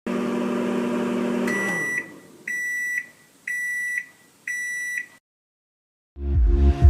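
A steady electric hum that stops about two seconds in, overlapped by the first of four high electronic beeps, sounding about a second apart. After a short silence, music with a beat comes in near the end.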